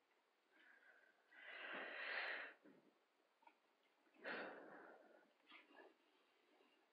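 A person breathing close to the microphone: two audible breaths, the first about a second and a half in and the second about four seconds in, with a couple of softer ones just after.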